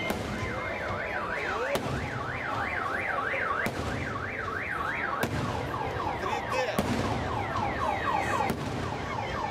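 Car alarm siren wailing up and down in pitch about twice a second, then switching to a faster run of falling chirps, with fireworks bangs going off now and then.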